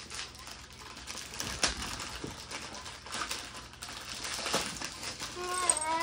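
Shiny foil-style Christmas wrapping paper crinkling and tearing as gifts are unwrapped, with irregular crackles and sharp rips. Near the end a child's voice gives a short drawn-out call that dips in pitch.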